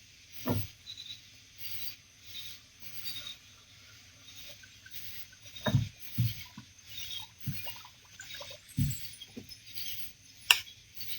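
Night insect chorus, a steady high chirring, with a few soft knocks and a sharp click near the end from gear being handled in a kayak.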